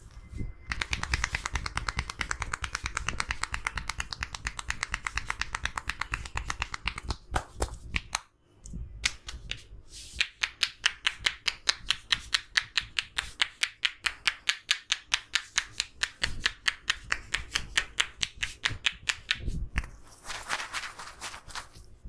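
Rapid, evenly paced tapping of a barber's hands on a man's head during a head massage, a fast run of sharp clicks that stops briefly about eight seconds in and then resumes. Near the end the tapping gives way to a short rustle of hands rubbing through the hair.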